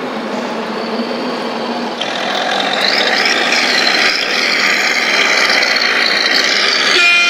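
Radio-controlled model truck driving through sand, with a steady truck-engine sound and a motor whine. It gets louder about two seconds in.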